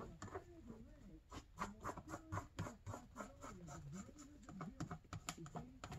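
Aluminium foil tape crinkling and scratching as it is pressed and smoothed by hand onto a plastic oil reservoir: a quick, irregular run of small clicks and rustles.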